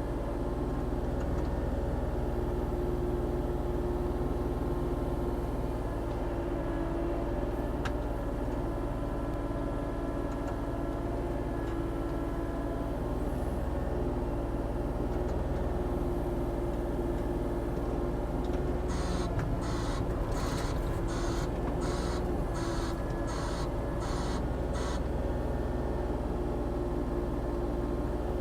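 Diesel engine of a Volvo ECR40D compact excavator running steadily as it digs. About two-thirds of the way through comes a run of about ten short, harsh, evenly spaced pulses, roughly two a second, lasting some six seconds.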